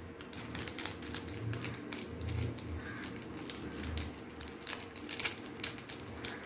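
A seasoning sachet being shaken and tapped over a paper instant-noodle cup: the packet crinkles and the seasoning patters into the cup in a run of irregular small ticks.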